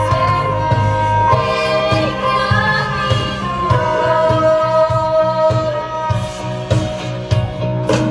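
Several women singing held lines in close harmony, accompanied by a live band, with drum hits coming in near the end.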